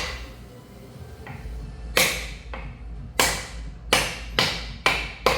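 Hammer blows driving the differential out of a Tesla Model 3 front drive unit, struck through a block of wood. About half a dozen sharp strikes after a pause, each dying away quickly, coming faster to about two a second near the end.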